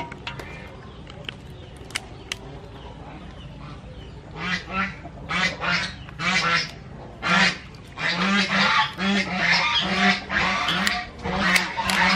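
Birds honking in short repeated calls, starting about four and a half seconds in and coming in quick runs from about eight seconds on. In the first few seconds there are a few sharp clicks of kitchen scissors snipping crab shell.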